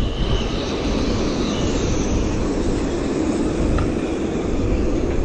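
Strong Mistral wind buffeting the microphone: a steady low rumble of noise.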